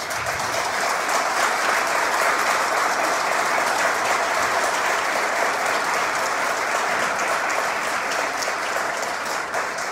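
Audience applauding: steady clapping from a seated crowd that eases off near the end.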